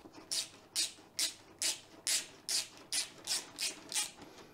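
Ratchet wrench turning a bolt on the oil cooler mount of a radiator, giving about ten short rasps at an even pace of roughly two a second. The bolt is not catching: there is nothing to thread into because the captive nuts were left in the old radiator.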